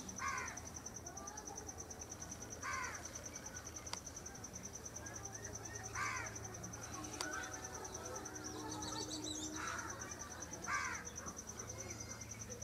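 An insect's steady, high-pitched, rapidly pulsing trill, with a short chirping call repeating every two to three seconds.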